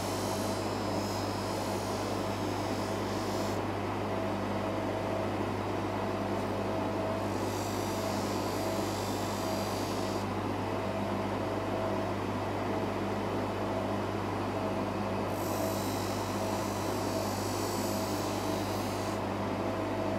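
Bench polishing motor running steadily with a felt buffing wheel, a steady hum with a thin whine over it. A brighter hiss comes and goes three times as the watch case is pressed against the spinning wheel.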